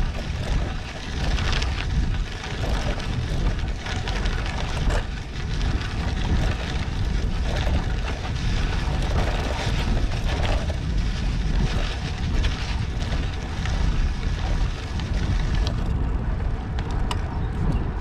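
Road bike on Bontrager R2 tyres rolling along a dirt road: steady tyre noise with many small ticks and rattles from the loose surface, under heavy wind buffeting on the microphone.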